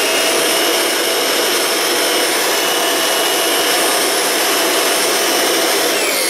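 Kirby G4 upright vacuum's motor running at full speed with a steady high whine, then starting to wind down near the end as it is switched off.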